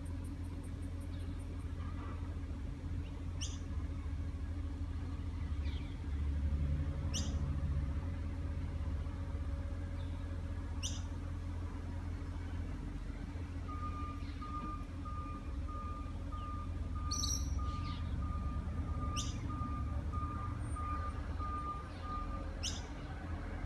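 A truck engine idles steadily with a low drone. About halfway through, a reversing alarm starts beeping evenly, about one and a half beeps a second, for around eight seconds. A bird gives short, high chirps every few seconds.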